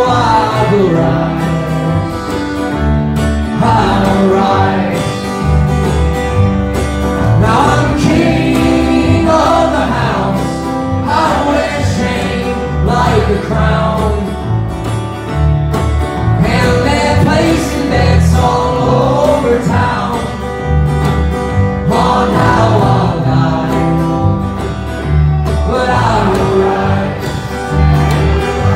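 Live country-bluegrass band: a man singing over strummed acoustic guitar, with upright bass underneath.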